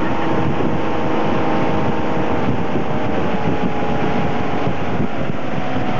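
Towing motorboat's engine running steadily at speed, with wind buffeting the microphone.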